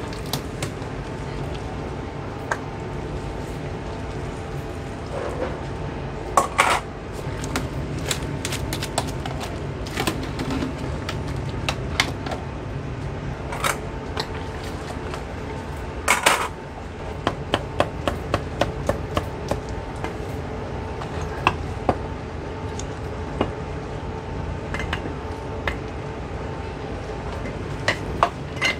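Metal utensils and bowls clinking and knocking, with a quick run of about a dozen cleaver chops on a wooden chopping block, roughly four a second, a little past halfway. A steady hum runs underneath.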